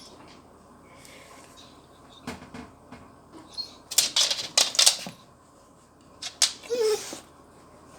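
Dog making rapid clicking noises in three spells, densest about four to five seconds in, with a brief high whine near the end.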